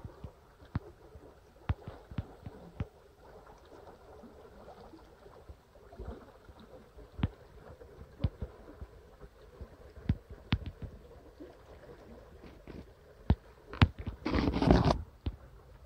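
Hand-held camera handling noise: irregular light clicks and knocks over a low rumble, with a brief loud rustle near the end.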